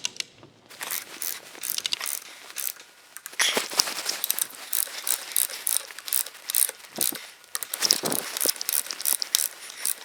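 Ratchet wrench clicking in quick runs as the knuckle seal retainer bolts are run down and tightened to about 10 foot-pounds.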